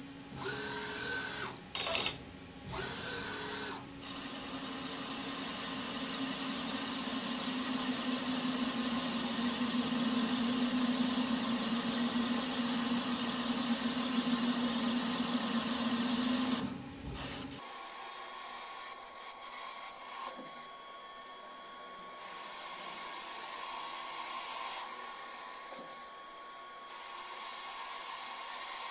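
CNC lathe running: a few short machine whirs, then the spindle and chuck spinning at speed with a steady high whine over a low hum. About two-thirds of the way through, the sound drops abruptly to a quieter, uneven machine hum with a thin steady tone.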